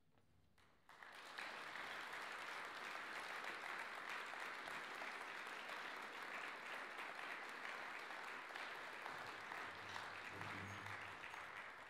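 Audience applauding, the clapping starting about a second in and beginning to taper off near the end.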